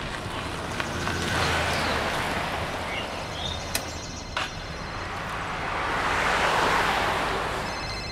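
Road traffic: vehicles passing with a rush that swells and fades twice, and two sharp clicks in the middle. Near the end a mobile phone starts ringing with a high, pulsing ringtone: an incoming call.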